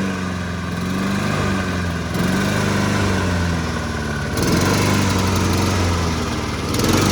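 2015 Honda Civic Si's 2.4-litre four-cylinder engine running through its exhaust before the new downpipe and catback were fitted. The pitch drifts a little, and the level jumps abruptly a couple of times.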